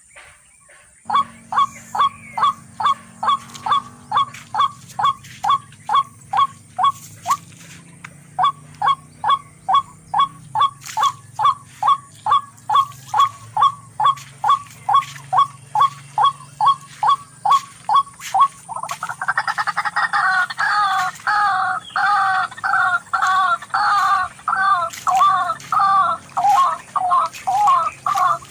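Tikling (rail) calling: a long series of short, evenly repeated notes, about two and a half a second. Near the end it changes to a louder, quicker two-pitched calling. A faint low hum runs underneath.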